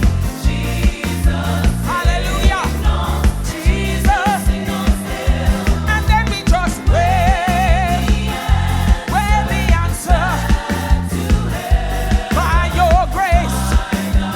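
Live gospel hymn music: a lead singer holding and bending notes with a wide vibrato over a band with a heavy, steady beat, with backing singers.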